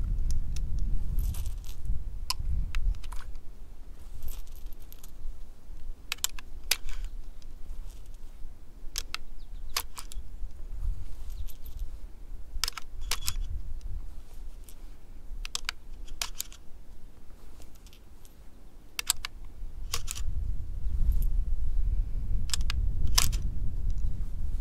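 Sharp metallic clicks and clinks, irregular and a couple of dozen in all, of brass cartridges being handled and pushed through the side loading gate into the magazine of a replica Winchester 1866 saddle ring carbine. Wind rumbles on the microphone at the start and again near the end.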